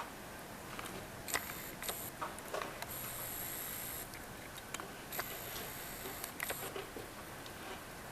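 Snow shovel scraping: a few short scrapes, then two longer scrapes of about a second each, with sharp knocks in between, over a steady hiss.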